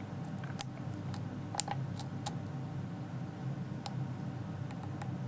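Lock pick clicking and ticking against the pins inside a Trioving 5633 padlock's six-pin core while picking it: scattered small, irregular clicks, the sharpest about a second and a half in, over a steady low hum.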